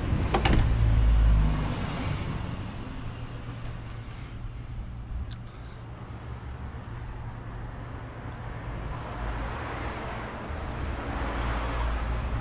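Steady road-traffic and street background noise with a low hum. A clunk comes about half a second in, and a low rumble follows over the first two seconds.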